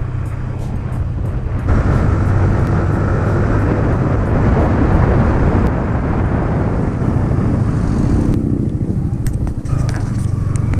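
Yamaha MT-15 motorcycle running under a steady rush of wind noise on the microphone as the bike speeds up to about 60 km/h. About eight seconds in the wind rush falls away as the bike slows almost to a stop, leaving the engine's low note.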